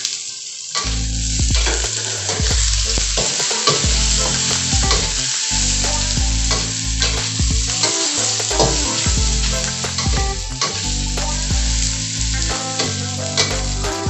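Sliced sausages and onions sizzling in hot oil in a steel wok, stirred with a metal spatula that scrapes and knocks against the pan.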